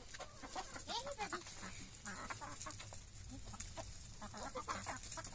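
A flock of chickens clucking quietly, with many short calls that rise and fall scattered through.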